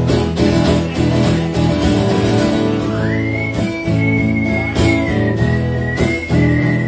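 Live acoustic guitar music playing chords in an instrumental break of a song. About three seconds in, a high whistled note slides up and is held, wavering slightly, until near the end.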